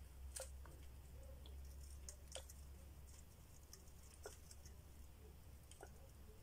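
Near silence with a low hum and a few faint plastic clicks as a plastic squeeze bottle is pressed and flotation liquid is squeezed into a small plastic flotation vial.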